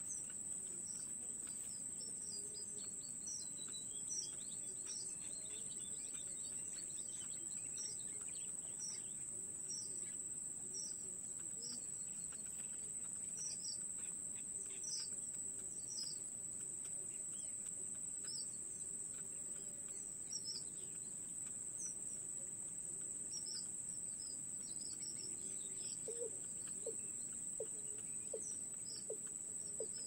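Insects droning on one steady high note, with a run of short, thin, falling cheeps from nestling birds in the nest. Near the end a quicker series of lower, sharper chirps joins in.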